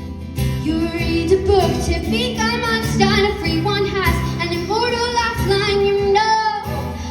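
A woman singing a pop song with instrumental accompaniment, performed live.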